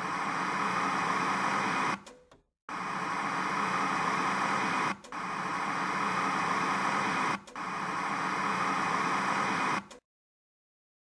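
Steady static hiss like white noise, with short dropouts about two, five and seven and a half seconds in. It cuts off suddenly near the end into dead silence.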